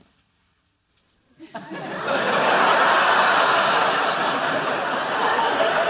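Studio audience laughing: near silence at first, then the laughter breaks out about a second and a half in, swells and keeps going.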